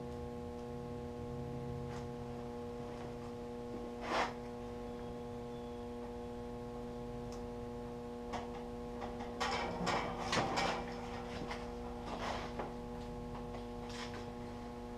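A sticker being handled and pressed onto a toolbox: soft crinkling and rubbing, a short crackle about four seconds in and a busier stretch around ten seconds in, over a steady hum.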